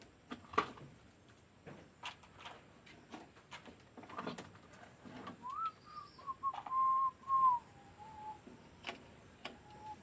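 Scattered light knocks and clicks of handwork, and from about halfway a clear whistle-like tone near 1 kHz that steps slowly down in pitch over about three seconds, then returns briefly near the end.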